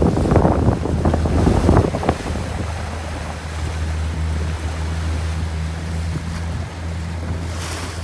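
Wind buffeting the microphone for the first two seconds or so, then the steady low hum of a boat's motor running at an even speed, with wash of sea water around the hull.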